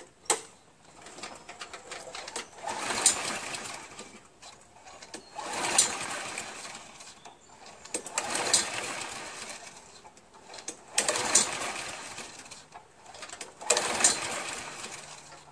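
Honda HRZ216 mower's GCV160 engine being pull-started about five times, roughly every three seconds: each yank of the recoil cord spins the engine over briefly, but it does not catch. The owner blames oil flooding the engine, soaking the air cleaner and filling the carburetor.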